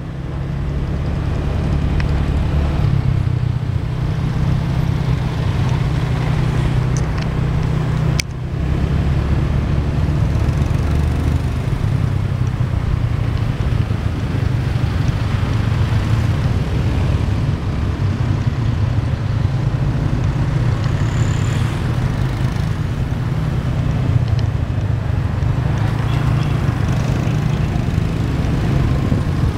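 Motorbike engine running steadily while riding through town traffic, with a strong low rumble from the engine and wind over the microphone on the moving bike. The sound drops out briefly about eight seconds in.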